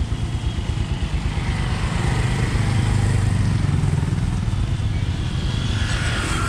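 A vehicle engine running steadily with a low, fast-pulsing rumble while travelling, with road and wind noise over it.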